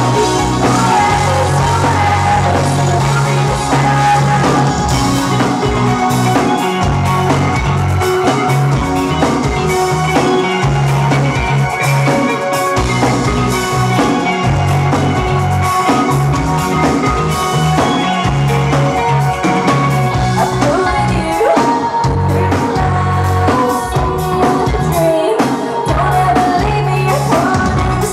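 A rock band playing live: electric guitars, bass guitar and drum kit with a female lead vocal, loud and full throughout, heard from within the audience in a club.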